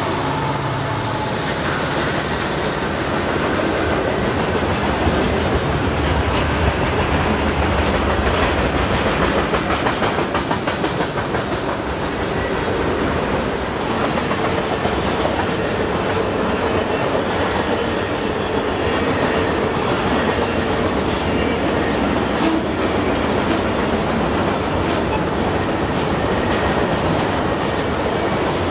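Lumber-laden freight cars rolling across a steel girder bridge: a steady rumble of wheels on rail with clickety-clack over the joints.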